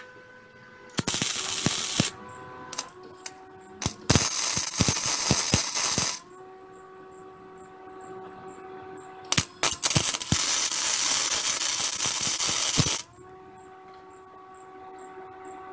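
MIG welder arc crackling as scrap steel is welded onto a rusted truck cab mount: three bursts of welding, about a second, two seconds and three and a half seconds long, with a few short tack pops between them.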